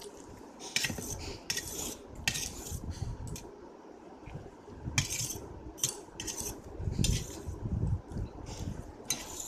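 A metal fork scraping and clinking against a metal plate as noodles and omelette are cut and scooped up, in several short, irregular strokes.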